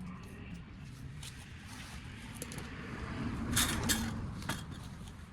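Light metallic clinks and rattles of parts and tools being handled during hands-on work on the lower radiator support, with a couple of sharper clinks nearer the end over a low rumble.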